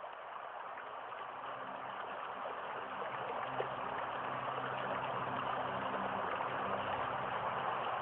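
Rushing water, like a river flowing, swelling slowly. Under it is a steady low sustained drone of several held tones.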